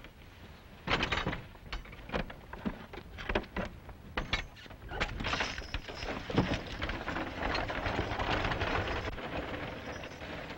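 Horse-drawn buggy being boarded and pulling away: a few knocks and clatters, then a steady rushing, crunching roll of wheels on a dirt road that eases off near the end.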